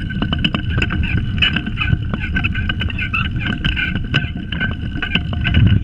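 Pedal go-kart rolling fast over asphalt: a steady rumble from the hard wheels, with frequent rattling clicks from the kart's frame and chain.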